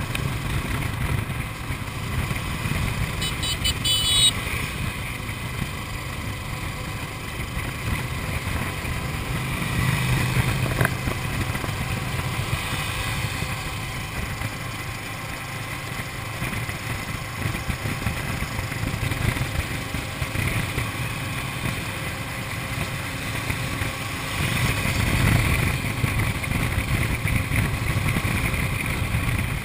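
Motorcycle engine running at highway cruising speed, with wind noise on the microphone. The rumble swells louder around ten seconds in and again near the end.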